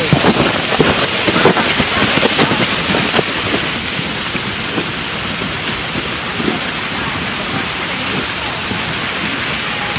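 Steady rush of water falling down a mountain waterfall that is partly iced over. In the first few seconds, crunching footsteps in snow and trekking-pole clicks pass close by.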